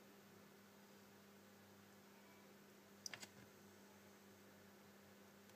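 Near silence: a steady low electrical hum, with a quick run of three or four light clicks about three seconds in.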